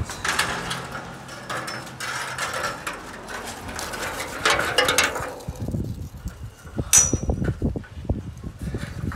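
Rustling handling noise, then a run of metallic knocks and clicks as a hand works a fitting on a steel scaffold board. One bright ringing clink comes late on.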